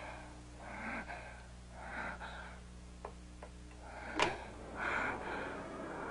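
A woman breathing heavily and wheezing in ragged breaths about once a second, with a sharp click a little past the middle as a telephone handset is set down on its cradle.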